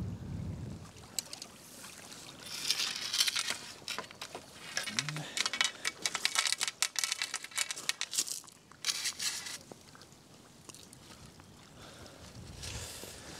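Irregular crunching and clicking of a beach-casting rod and reel being handled on a shingle shore, busiest from about two to nine seconds in. Wind rumbles on the microphone at the start and near the end.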